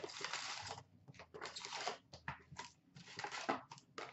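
Cardboard box of hockey card packs being opened and the wrapped packs pulled out and set down: crinkling and rustling of packaging, a longer stretch in the first second, then several shorter bursts.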